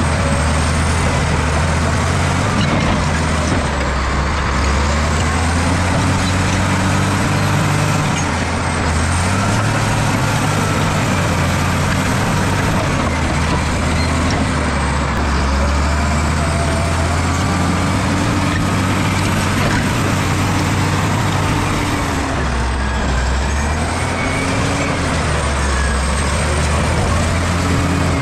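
Bulldozer's diesel engine running hard while pushing soil, its note sagging and rising again several times as the load comes on and eases.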